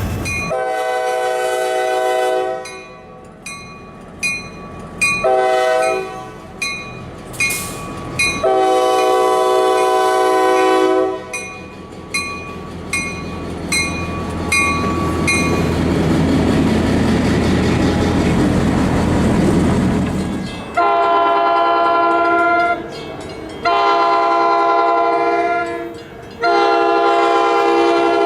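Locomotive multi-chime air horn sounding a chord in blasts: a long one, a short one and a long one, then about eight seconds of the passing train's rumble, then three more long blasts. A quick ringing, about two strikes a second, comes between the first blasts.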